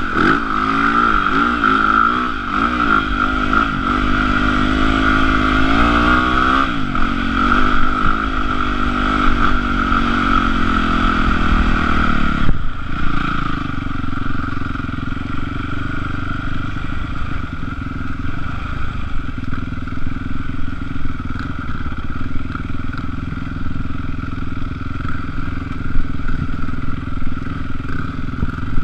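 Yamaha YZ450F dirt bike's 450 cc four-stroke single-cylinder engine running under a rider, its pitch rising and falling with the throttle for the first dozen seconds. After a sudden break about twelve seconds in, it runs at a steadier, lower pitch.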